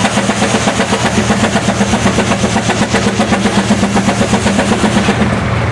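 Case steam traction engine's exhaust chuffing from the stack at about five beats a second, working under load while belted to a sawmill. The beat softens and evens out about five seconds in.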